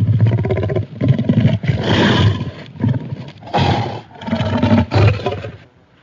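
Designed dinosaur sound effect of a Carcharodontosaurus saharicus: a run of five or six deep roars and growls, each lasting about half a second to a second. The harshest and loudest comes about two seconds in, and the run trails off near the end.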